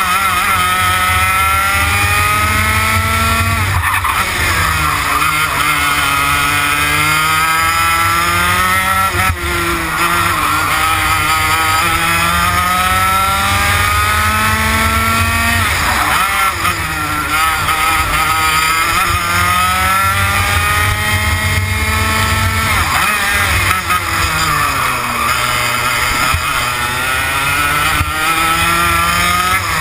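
TKM BT82 Extreme 100cc two-stroke kart engine at racing speed, its pitch climbing over several seconds and then dropping sharply, over and over: accelerating out of corners and lifting off for the next ones.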